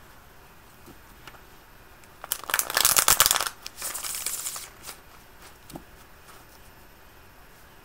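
Tarot cards being shuffled: a rapid flurry of card flicks about two and a half seconds in, lasting about a second, then a softer stretch of shuffling and a few faint taps.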